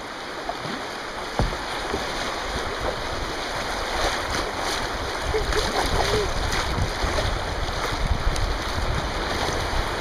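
River water rushing and splashing around a kayak's bow as it runs a shallow white-water rapid: a steady rush of water noise.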